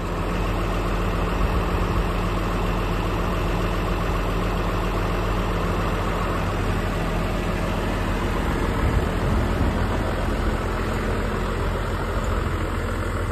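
New Holland tractor's diesel engine running steadily at low revs, an even low hum.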